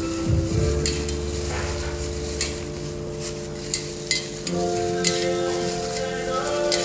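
A hand in a plastic glove mixing sliced pork in a stainless steel pot: wet squishing and rustling with irregular light clicks. Soft background music with held notes plays underneath.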